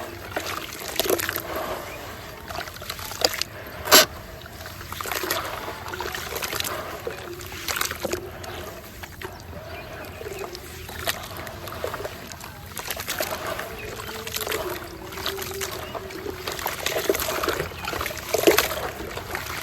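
Small pieces of concrete crumbling and dropping into water: irregular splashes and sloshing mixed with crisp crunching clicks, and one sharp crack about four seconds in.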